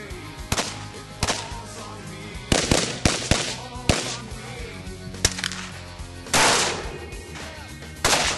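Irregular gunshots from firearms at a training range, about eight over a few seconds, over background music; one about six seconds in rings out longer than the rest.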